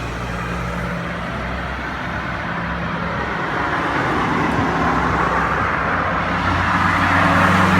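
Road traffic: a low engine hum throughout, with a passing vehicle's engine and tyre noise swelling to its loudest near the end.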